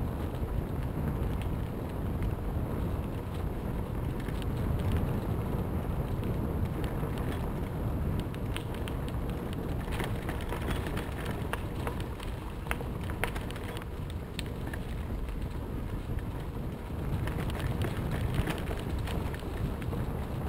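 Bicycle tyres rolling over a dirt trail covered in dry fallen leaves, with scattered crackles that come thicker about halfway through and near the end, under a steady low rumble of wind on the microphone.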